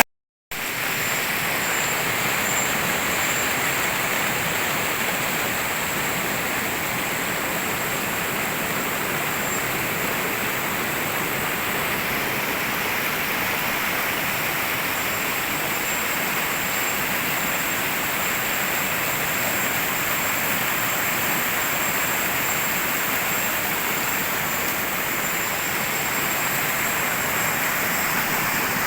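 Steady rushing of a mountain stream's flowing water, after a brief dropout at the very start.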